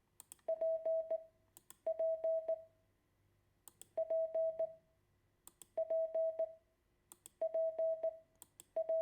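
Morse code tone sending the letter P (di-dah-dah-dit) six times over, each letter a short group of mid-pitched beeps run through with sharp clicks, with pauses of about a second between letters.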